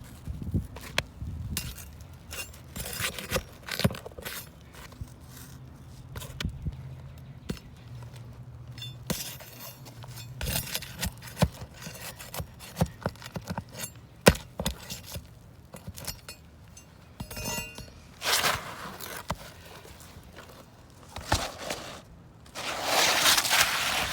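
Hand work on roof shingles during a shingle replacement: scattered taps, knocks and clinks with scraping, and two longer noisy rushes near the end.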